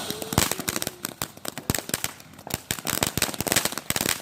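Firecrackers going off in a loud, rapid, irregular string of sharp cracks, thinning out briefly about two seconds in.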